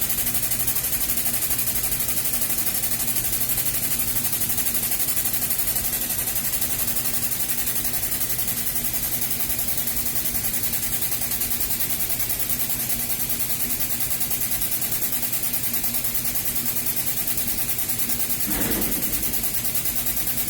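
Hydraulic press pump running steadily with a constant hum while it loads a welded T-joint for a break test. A short knock comes near the end.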